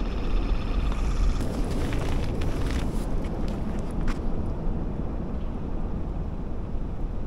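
Wind buffeting the microphone: a steady, uneven low rumble. Rustling and a few sharp clicks come between about a second and a half and four seconds in, as the camera is handled and swung round.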